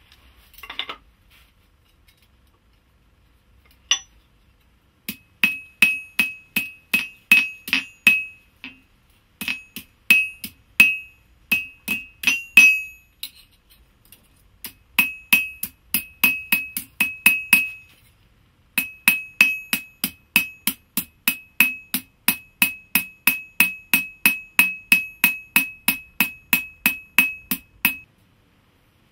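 Small hand hammer striking a thin metal strip on a steel anvil: steady blows, about three a second, each with a bright ring. The hammering stops briefly three times and ends near the close.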